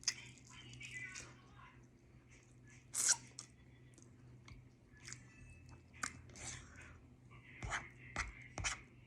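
A person chewing food close to the microphone, with scattered wet mouth smacks and clicks, the loudest about three seconds in and several more near the end, over a faint steady low hum.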